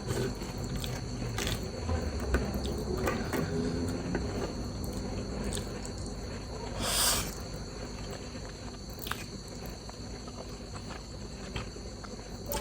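Close-miked eating sounds: wet chewing with scattered mouth clicks, and one louder short rushing burst about seven seconds in. A faint steady high whine sits underneath.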